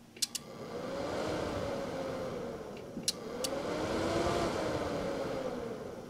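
Stock Y.S. Tech cooling fan of an Icom IC-7300 transceiver spinning up with a rising whine and rush of air, then winding down, twice. Each run follows a pair of sharp clicks as the radio is keyed to transmit.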